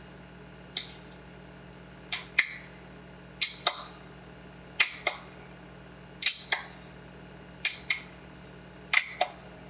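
Sharp hand slaps in pairs, about a quarter second apart, repeating roughly every second and a half: a patty-cake clapping game, hands clapping and slapping against a dog's raised front paws.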